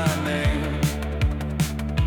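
Background music with a steady beat: drum hits about two or three a second over a held bass and pitched instrument notes.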